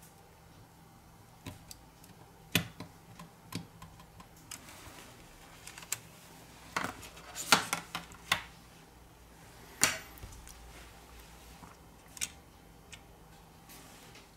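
Irregular small clicks and taps of tweezers and plastic and metal phone parts as a Huawei Y7 2019 smartphone is reassembled: flex connectors pressed onto the motherboard and its cover plate fitted. The loudest clicks come around the middle.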